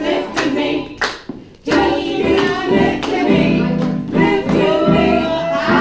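People singing together, with a few sharp hand claps in the first second or so.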